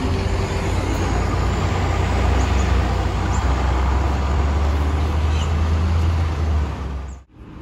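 A large road vehicle's engine running close by: a loud, deep, steady rumble over broad road noise that ends abruptly near the end.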